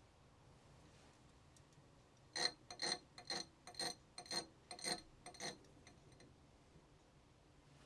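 About eight sharp metallic clicks with a short ring, two to three a second, from the endmill grinding rest's clamp lever being worked to loosen the accessory on its table.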